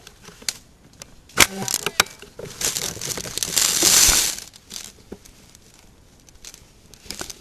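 Rustling and crinkling close to the microphone, with two sharp clicks about a second and a half and two seconds in, then a louder rustle lasting nearly two seconds.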